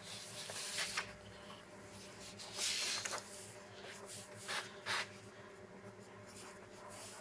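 A sheet of paper rustling as it is handled and laid down, then a few short scratches of a ballpoint pen writing on the paper, over a faint steady hum.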